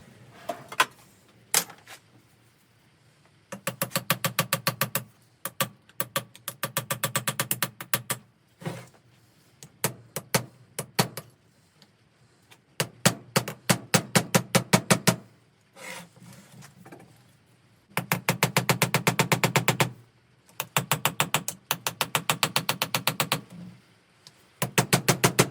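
A power hammering tool, such as an impact gun, working in repeated bursts of one to two seconds. Each burst is made of rapid, evenly spaced blows, about a dozen a second, with a few single knocks between bursts, while the old pump is being taken apart.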